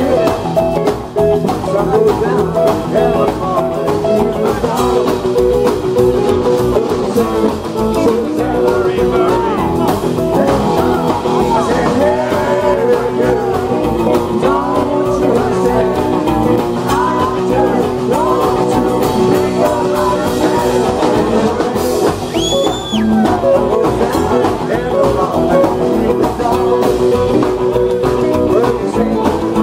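Live rock and roll band playing: a male singer into a microphone over electric guitar and upright double bass. A short high whistle rises and falls about three quarters of the way through.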